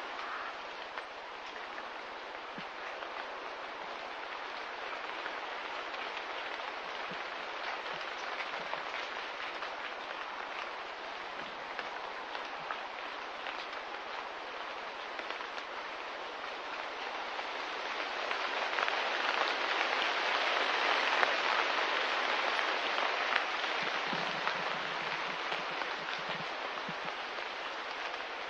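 Steady rain falling, a dense patter of drops that swells louder a little past halfway, then eases back.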